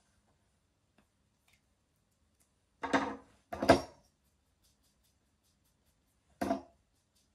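Short handling knocks on a wooden tabletop as small items are put down and moved: two about three seconds in, half a second apart, the second louder, and one more near the end.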